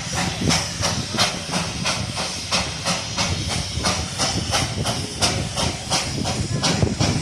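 Darjeeling Himalayan Railway toy train's steam locomotive chuffing steadily, a rapid run of hissing exhaust beats, several a second, over a low rumble.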